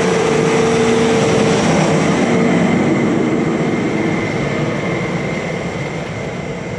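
Large harvest machine's diesel engine running steadily under load, a constant drone with a thin high whine that fades slightly toward the end.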